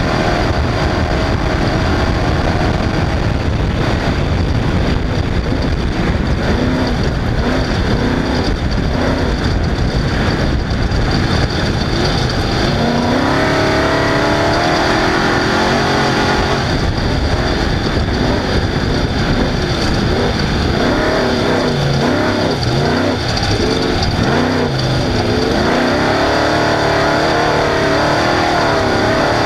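Off-road race vehicle's engine running hard, its pitch rising and falling again and again as the driver gets on and off the throttle, over a constant loud rush of noise.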